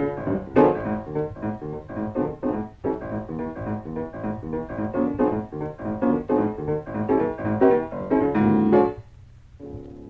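Solo piano playing a fast, rhythmic ragtime-style piece with a busy bass. It ends on a held final chord about nine seconds in. A quieter steady sustained tone follows shortly after.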